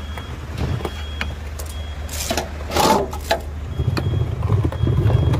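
Steady low engine hum with a few sharp clanks of tools and parts being handled and short faint high beeps now and then; a heavier engine rumble builds about two-thirds of the way through.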